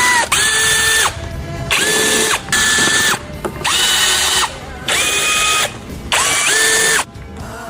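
Handheld power tool, a drill or powered ratchet, run in about six short trigger pulls of under a second each. Each pull spins up to a steady high whine, holds, then stops.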